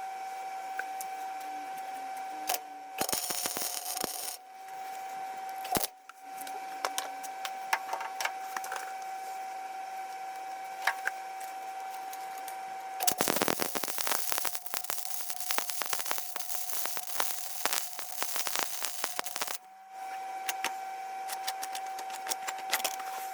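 Metal fabrication work on a light mount: a steady hum with scattered metallic clicks and knocks, and about six seconds of loud, dense crackling past the middle.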